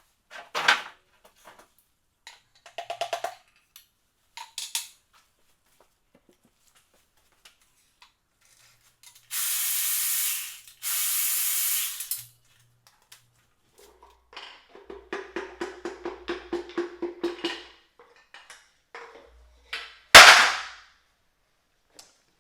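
Hand work on a stripped-down engine: a few metallic clicks and a short rattle, then two hisses of aerosol spray of about a second each. After that comes a quick, even run of clicks lasting about three seconds, and near the end a single loud metal clank, the loudest sound.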